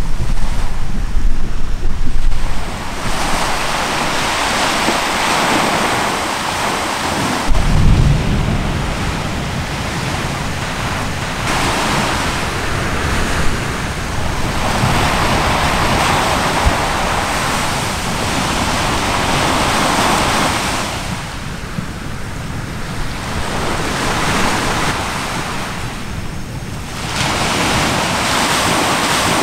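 Sea waves washing onto the shore, surging and easing every few seconds, with wind on the microphone. There is a deep low rumble at the start and again about eight seconds in.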